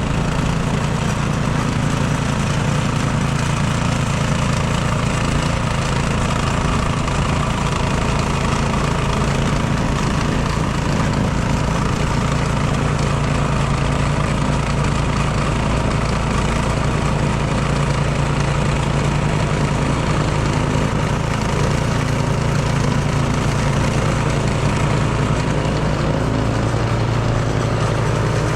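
Craftsman snowblower's gasoline engine running steadily at a constant speed.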